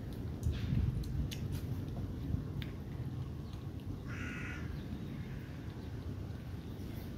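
A crow caws once, a single harsh call about four seconds in, over a low steady background rumble.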